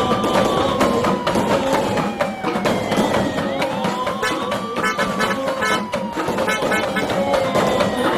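Music with busy drums and percussion, with a wailing siren over it that rises quickly and sinks slowly, starting again about every three to four seconds.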